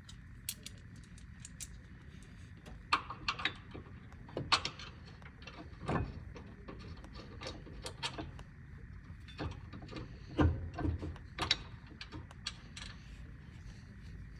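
Irregular metallic clicks, taps and a few heavier clunks of hand tools and brake hardware being handled while a front brake bracket is fitted.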